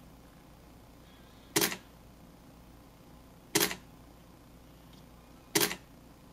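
Canon 20D digital SLR firing its shutter and mirror three times, one sharp clack every two seconds, as an intervalometer takes a timed series of exposures.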